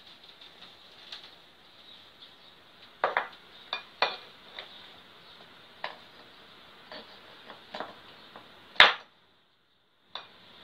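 Steel gearbox parts being handled and fitted together: scattered metal clinks and knocks, several sharp ones about three to four seconds in and the loudest single clank about nine seconds in.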